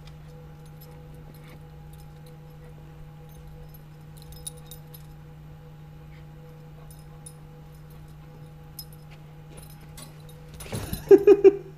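Border terrier giving three short whimpers near the end, over a steady low hum with faint scattered clinks.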